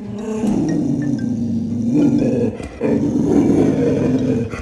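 A dog growling in two long, low, rumbling stretches with a brief break in the middle.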